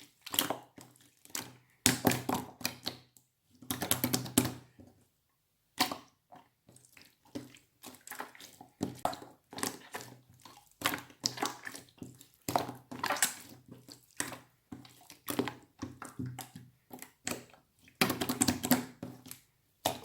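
Slime being squished, pressed and folded in the hands, giving runs of small crackling clicks and squelches in bursts, with longer squishes about two and four seconds in and near the end.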